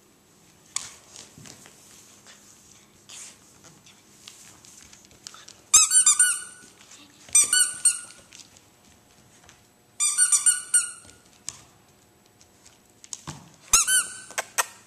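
Squeaky dog toy squeaked in four short bursts of quick, high squeaks, with faint taps and rustles before them.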